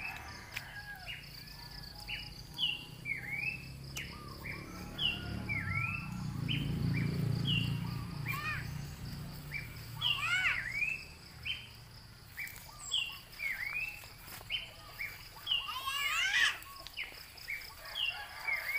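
Repeated short, high chirping calls, about one or two a second, over a steady high drone. A low rumble swells and fades in the middle, and near the end a burst of several overlapping calls stands out.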